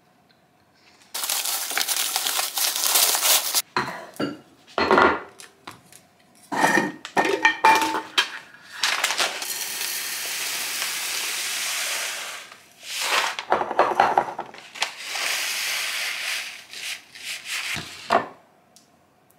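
Dried split peas pouring from a plastic bag into a glass jar in a steady rush, among bursts of plastic-bag crinkling and the clatter of jars and containers being handled on a countertop.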